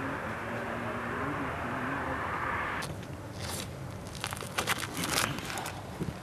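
A steady vehicle-engine hum with a wavering low tone, cut off abruptly about three seconds in, followed by scattered crunching and crackling rustles.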